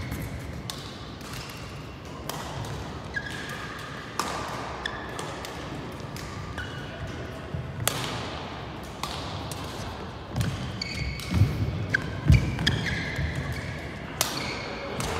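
Badminton play on indoor courts: sharp racket strikes on the shuttlecock, short high squeaks of shoes on the court floor, and a few heavier footfall thumps about three-quarters of the way through, the loudest sounds here.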